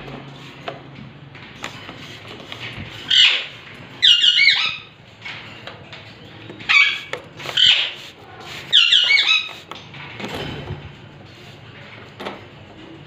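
Alexandrine parakeets giving loud, harsh squawks, about five calls over six seconds, starting about three seconds in. Some calls are broken into quick stuttering notes.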